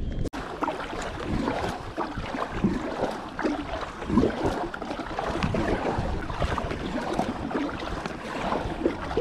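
Water sloshing and lapping against a kayak hull, with irregular small splashes and wind buffeting the microphone.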